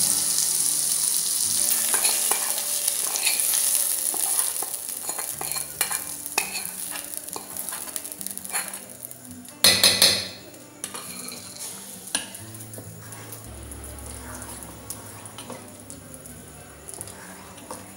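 Shallots, drumstick leaves and mustard seeds sizzling in hot oil in a small kadai while being stirred. The sizzle fades over the first several seconds, with one loud brief noise about ten seconds in. After that comes a metal spoon scraping and stirring through thick adai batter in a steel bowl.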